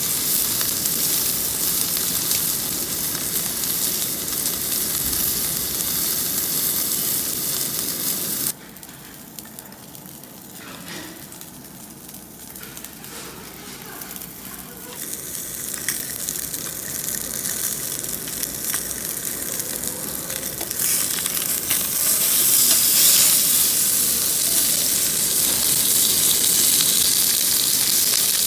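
Pork ribs sizzling on a grill: a steady hiss that drops off abruptly about a third of the way in, then builds back up and is loudest near the end.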